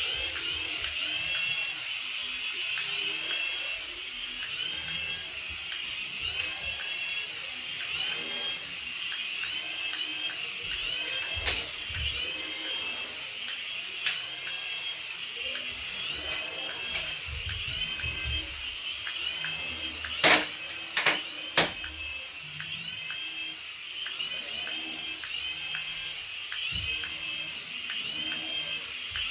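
A remote-control toy's small electric motor whining steadily at a high pitch, with a repeating warble. A few sharp clicks come about a third of the way in and twice more around two-thirds of the way.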